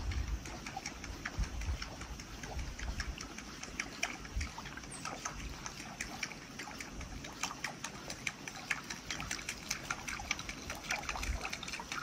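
Water splashing and trickling in many small, irregular drips and splashes, with a low rumble that is stronger near the start.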